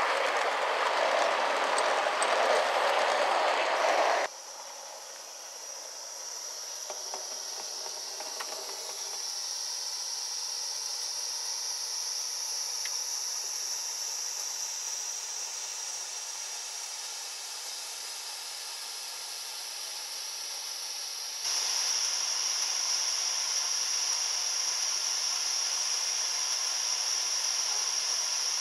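Gauge 1 model coaches rolling along garden-railway track, which cuts off abruptly about four seconds in. After that comes a steady steam hiss from a live steam model of an LNER A3 Flying Scotsman standing on a turntable, which turns louder for the last several seconds.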